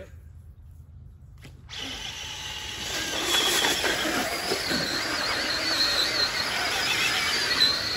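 Electric motor of a 4x4 RC off-road truck whining under load as it drives through deep mud and water. The high, wavering whine starts about two seconds in and grows louder.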